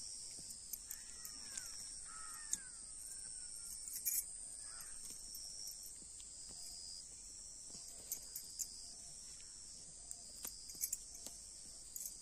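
Steady high-pitched chorus of insects, with a few birds calling in the first couple of seconds and scattered light clicks and rustles.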